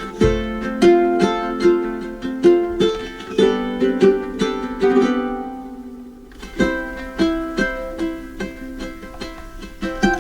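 Background music: a plucked ukulele tune that fades briefly about two-thirds through, then picks up again.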